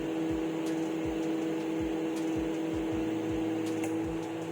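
Microwave oven running with its steady electrical hum, and a soft low pulse repeating about two to three times a second, as it heats a bread bun near the end of its cycle.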